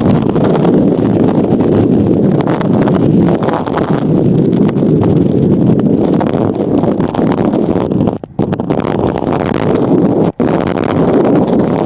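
Onboard sound of a driving RC car: steady wind and running noise on the car-mounted microphone. The noise drops out briefly twice, around eight and ten seconds in.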